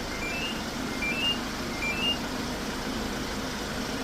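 A Magic Car Gold8 two-way remote-start alarm gives three short rising beep sequences about 0.8 s apart. Under them, a Hyundai Grand Starex engine idles after a remote start.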